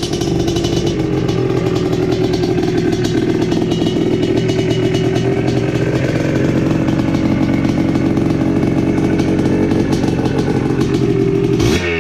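1982 Yamaha IT250's two-stroke single-cylinder engine, fitted with new Boyesen power reeds, running steadily after being kick-started. A sudden break comes near the end.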